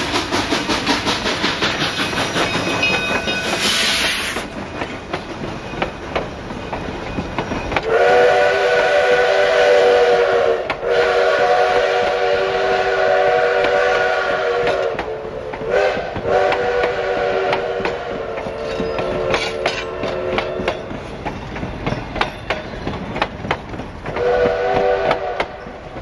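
Steam locomotive chuffing as it pulls past, with a burst of steam hiss about four seconds in. Then its chime whistle sounds a chord of several tones in the grade-crossing pattern, long, long, short, long, with one more shorter blast near the end, over the clatter of the passenger coaches on the rails.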